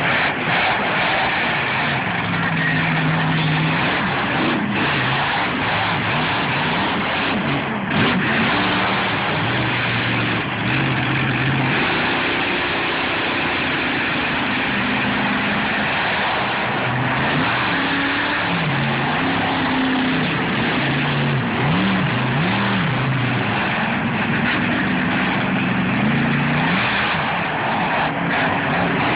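Monster truck engines revving hard, their pitch swinging up and down again and again over a dense, loud wash of engine noise. A single sharp knock comes about eight seconds in.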